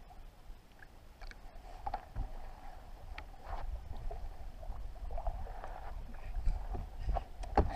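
Water lapping against a bass boat's hull, with low wind rumble on the microphone that grows louder toward the end. A few sharp knocks and clicks come through, the loudest near the end, as a pike is hooked and fought on a spinnerbait rod.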